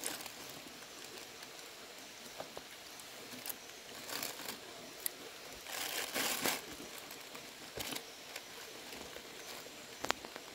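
Thin plastic bag crinkling and rustling in short bursts as hands move a wet catch of small fish into it and through it, over a faint steady hiss; the loudest rustle comes about six seconds in.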